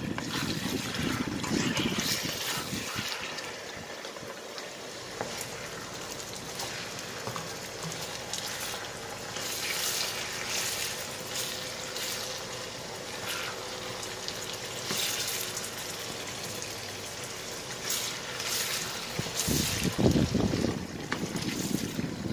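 Prawns, fish and onions in oily mala sauce sizzling in a wok while a plastic spatula stirs and turns them, with short scraping strokes against the pan. The stirring grows louder near the end.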